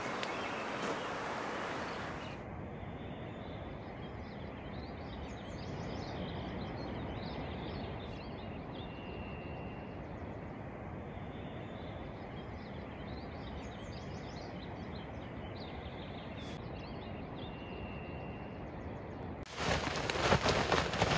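Quiet outdoor morning ambience: a steady low hiss with scattered bird chirps and twice a single held whistled bird note. About a second and a half before the end, a sudden loud rustling and flapping as a tent is shaken out.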